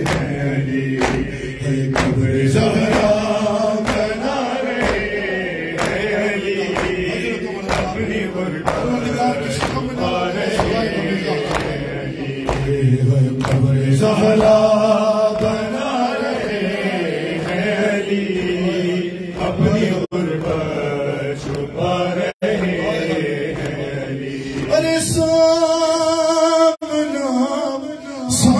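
Shia noha recitation: men chanting a mournful Urdu lament over a microphone, with the crowd's chest-beating (matam) striking in a steady rhythm. Near the end a single voice holds long notes.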